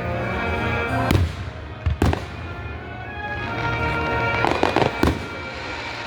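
Aerial fireworks exploding: sharp bangs about one and two seconds in, then a flurry of crackling followed by another bang near the end, with music playing underneath.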